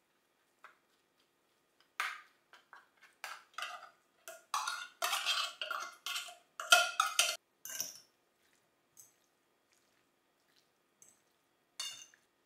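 Metal fork scraping and knocking inside an open tin can and against a glass bowl as tuna is emptied out: a quick, irregular run of clinks and scrapes lasting several seconds. One more short clink near the end as the fork goes into the bowl.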